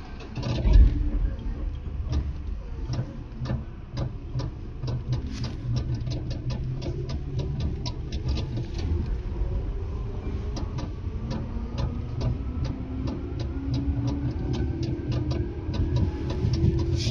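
Tobu 10030 series electric train running, heard from inside the car: a heavy thump about a second in, then a steady rumble with quick regular clicks, and a motor whine that rises slowly in pitch as the train gathers speed.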